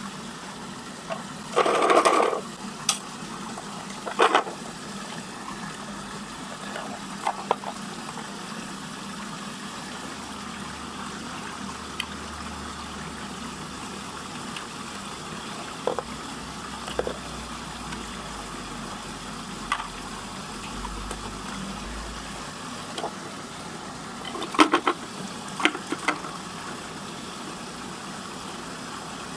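Water swirling steadily down a whirlpool vortex drain, with occasional sharp plastic clicks and knocks. The loudest knock comes about two seconds in, and a cluster comes near the end.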